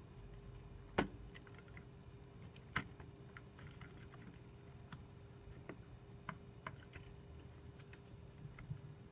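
Scattered light clicks and taps of hands and tools working on the internal parts of an opened 2010 Mac Mini, with two sharper knocks about one and three seconds in, over a faint steady hum.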